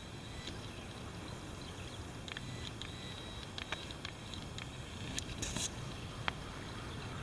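Outdoor ambience: a steady low rumble with scattered faint chirps and clicks, and a brief hiss about five and a half seconds in.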